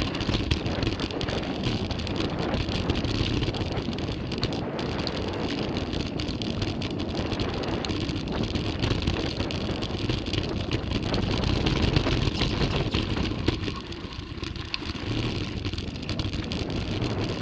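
Mountain bike riding down a dirt trail: continuous tyre noise and rattling over rough ground, with wind on the microphone.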